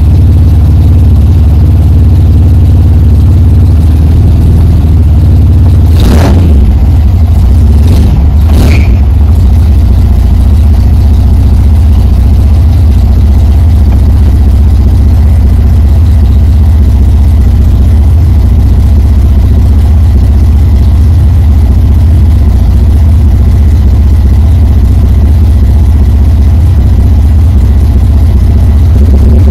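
V6 engine of a 1971 MGB idling cold just after start-up, heard loud from the cabin. There are two short swells in engine sound about six and eight and a half seconds in.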